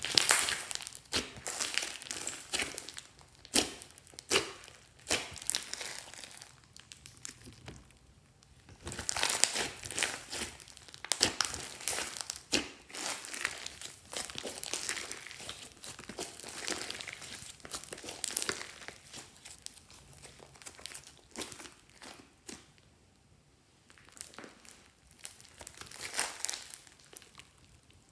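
Hands kneading, squeezing and stretching a large lump of fluffy slime. It makes many small clicks and pops in irregular bursts, going quiet twice.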